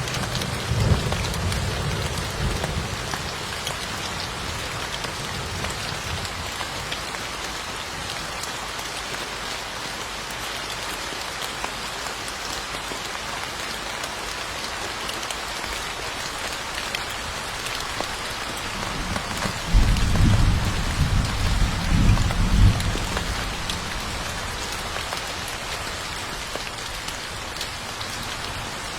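Steady rain falling, with low rumbles of thunder: one fading away in the first few seconds and a louder one about twenty seconds in, lasting a few seconds.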